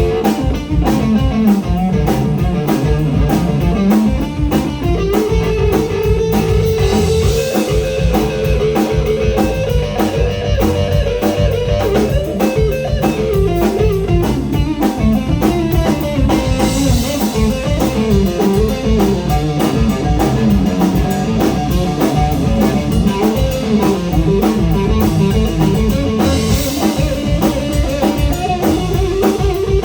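Live blues-rock band playing an instrumental stretch: an electric guitar plays lead lines that bend up and down in pitch over bass guitar and a drum kit, with cymbals swelling a few times.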